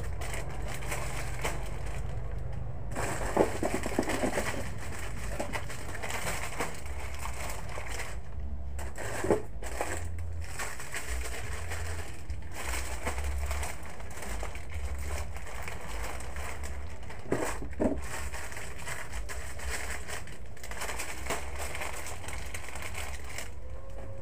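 Plastic-wrapped goods rustling and crinkling as they are handled and stacked on shelves, with a few louder crackles, over a steady background hiss and low hum.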